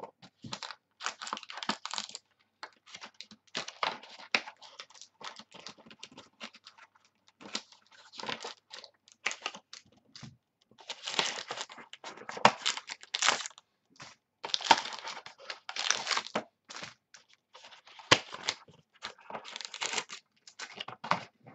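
Cardboard and packaging of a football card hobby box rustling and crinkling in irregular bursts as hands open it and lift the card packs out of their trays.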